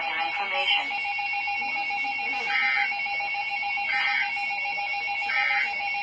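Emergency Alert System end-of-message code: three short warbling digital data bursts, about a second and a half apart, starting about two and a half seconds in, over a steady high whine. A voice is still finishing within the first second.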